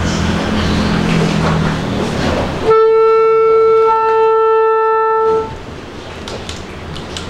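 Room noise with a low hum, then about three seconds in a single clarinet note held steady for about two and a half seconds, stopping sharply. A few faint clicks near the end.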